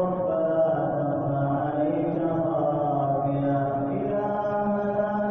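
Taraweeh-prayer supplication (dua) chanted in Arabic on long, drawn-out melodic notes that shift slowly in pitch.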